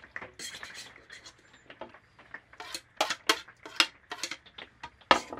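A metal spoon scraping and clinking against a metal baking pan, a run of short scrapes and sharp clicks, the loudest strikes a little past halfway and near the end.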